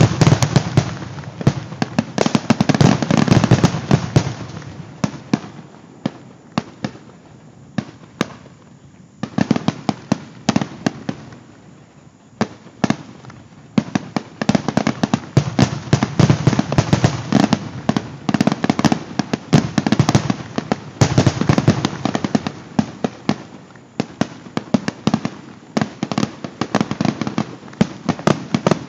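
Aerial fireworks display recorded on a smartphone: a dense, continuous barrage of shell bursts, bangs and crackle with a deep rumble. It swells and eases in waves every few seconds.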